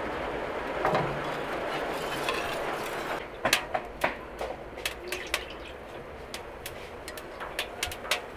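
Gas stove burner hissing steadily, then, from about three seconds in, a run of sharp irregular clicks and clinks from a metal strainer working in an aluminium pan of melted butter.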